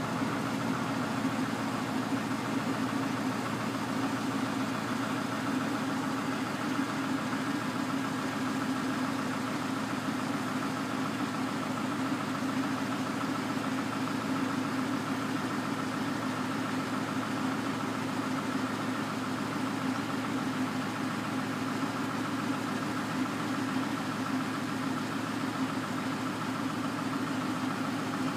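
Yard tractor's diesel engine running steadily at idle, with no change in pitch, while it powers the end-dump trailer's hydraulic hoist raising the box.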